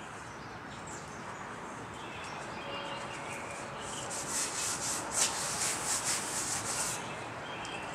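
A cloth or shop towel rubbing in quick scratchy strokes, wiping oil off, over a steady hiss. The strokes come at about three or four a second from about halfway in, then stop near the end.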